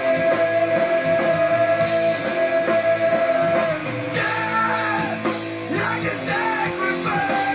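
Stoner-metal rock song with electric guitar and vocals: a long held note for the first few seconds, then shorter phrases over the band.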